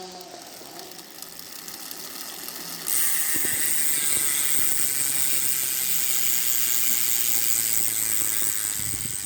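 Hope rear hub freewheel ratcheting as the rear wheel spins: its pawls click quietly at first, then about three seconds in it jumps to a loud, fast, high buzz that holds steady.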